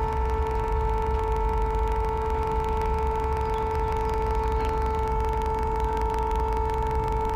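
A steady drone held on the note A, a pure-sounding tone with its octave sounding above it, unchanging throughout, over a low rumble.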